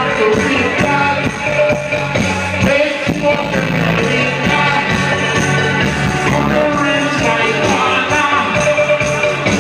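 Live dub-reggae sound-system music played loud through a large speaker stack, a bass-heavy riddim with a vocalist singing over it.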